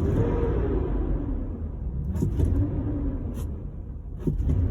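Chevy 6.0L V8 engine having its throttle snapped a few times, each rev rising sharply and falling back toward idle. The blips are meant to drive the mixture rich so the O2 sensors' response can be checked.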